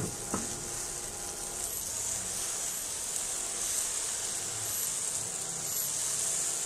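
Tomato dosa batter sizzling on a hot tava as a ladle spreads it in circles, a steady hiss, with a couple of light ladle taps right at the start.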